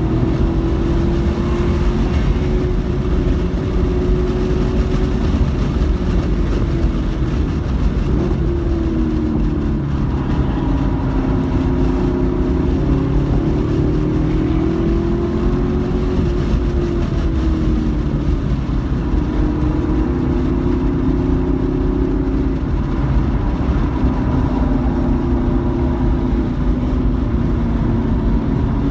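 Car engine running hard on a race track, heard from inside the cabin. Its note rises and falls several times as the car accelerates and slows for corners, over a heavy rumble of wind and road noise.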